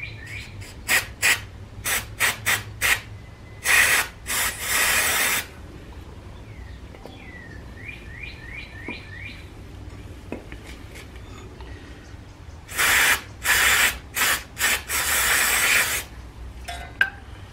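Aerosol brake cleaner sprayed through a straw onto a brake caliper bracket and its hardware to wash off grease and dust: a run of short spurts of hiss, two longer blasts about four seconds in, a pause, then several long blasts from about thirteen to sixteen seconds.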